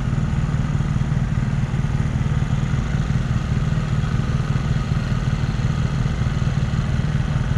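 A motor vehicle engine idling: a steady low rumble that does not change.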